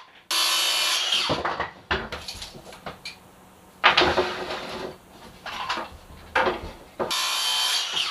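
Handheld circular saw cutting through a wooden board in a short run that winds down after about a second. Then knocks and a clatter of wood and tools being handled, and a second saw cut starting about a second before the end.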